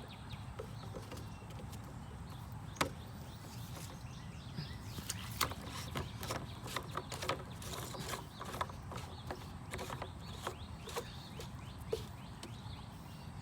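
Scattered light clicks and taps of a PVC union socket being handled and screwed closed, over a steady low background rumble.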